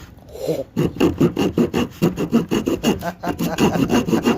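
Small folding saw blade of a Leatherman Wave multi-tool sawing, quick back-and-forth strokes about four to five a second that start a little under a second in.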